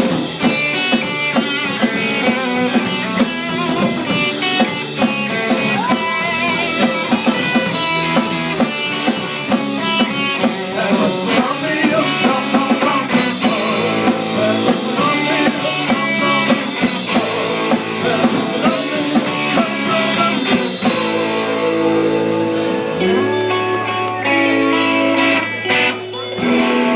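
Live instrumental surf rock band: electric guitars over bass and drum kit playing a Christmas tune. About 21 s in, the drum hits thin out and the band moves to long held notes and chords.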